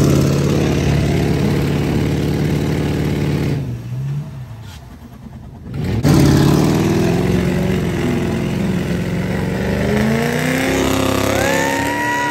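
Pickup truck engines revving hard under heavy load on a tow strap, one Ford truck pulling another out of deep mud. The revs hold high, drop back for about two seconds midway, then climb again, with a rising whine near the end.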